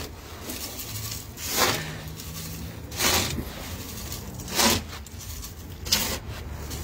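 Slotted plastic litter scoop digging into and sifting sand bedding on a chicken-coop floor table, as chicken droppings are scooped out. It makes four short scraping, pouring swishes about a second and a half apart.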